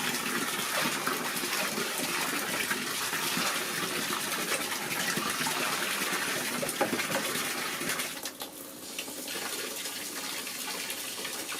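Water running from a tap and gushing into a basin or tub for a baby monkey's bath, a steady hiss that drops off briefly about eight seconds in and then carries on quieter.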